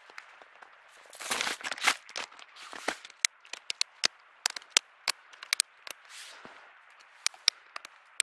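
Snowshoes being strapped on: a brief rustle about a second in, then a run of sharp, irregular clicks from the bindings' straps and buckles being worked.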